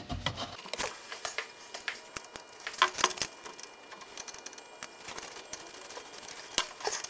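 Handling noise of gloved hands working a rubber fuel hose onto a metal fuel supply pipe: scattered light clicks and rustles, with a sharper click near the end.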